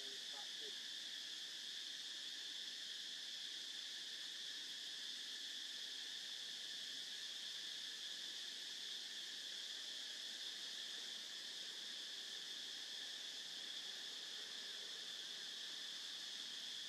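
Steady, unbroken chorus of insects in the forest canopy, a continuous high-pitched drone that holds the same level throughout.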